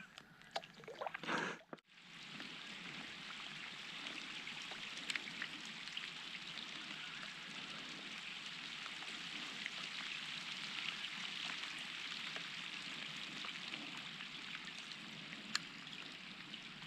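Heavy rain falling on the lake surface, a steady even hiss that sets in about two seconds in after a few brief faint sounds.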